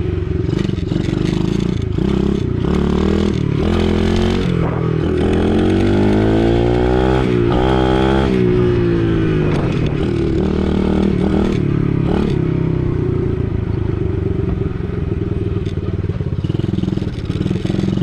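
Gas dirt bike's engine running loud while the bike is ridden. It revs up from about four seconds in, eases off again a few seconds later, then settles into a steady run.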